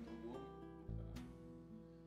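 Faint background music with acoustic guitar.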